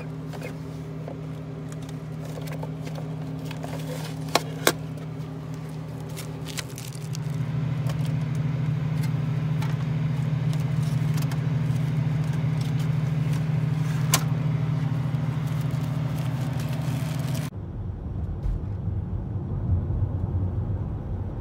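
Open vending machine humming steadily while its coin and cash parts are handled, with a few sharp metallic clicks about four seconds in and again near fourteen seconds. About seventeen seconds in it cuts to the low road rumble of a car's interior while driving.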